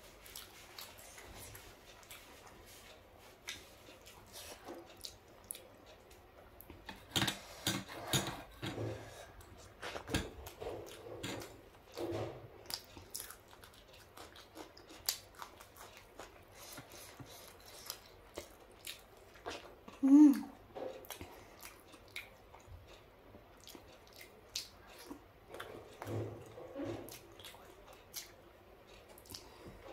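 Close-up eating sounds: a person chewing and biting soft idli dipped in sambar, with many small wet mouth clicks and smacks. One short, louder mouth sound comes about two-thirds of the way through.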